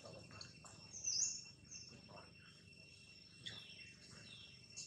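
Birds chirping in the trees, with a short high chirp that dips and rises about a second in and a few softer chirps after. Under them is a steady high-pitched drone of insects.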